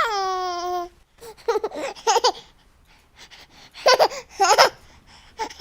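A person's voice making non-word sounds: a long falling note at the start, then two groups of short laughing vocal bursts.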